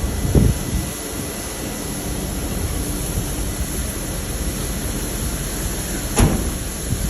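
Combine harvester running steadily while harvesting corn, with a low thump about half a second in and a sharp click about six seconds in.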